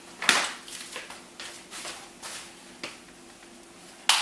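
Clicks and knocks from handling an iCandy Peach pushchair: a sharp click shortly after the start and another near the end, with lighter taps between.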